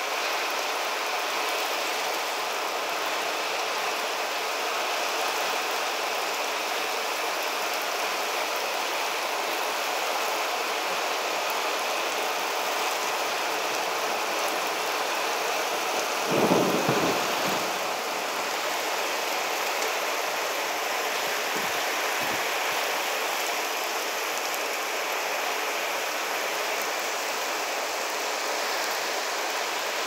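Heavy rain falling steadily in a thunderstorm, with one short, louder rumble of thunder about halfway through.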